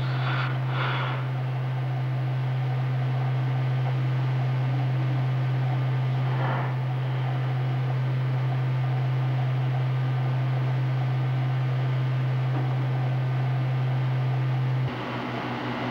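A loud, steady low hum with a few short hissing sounds over it. Just before the end the hum turns into a rapid pulsing.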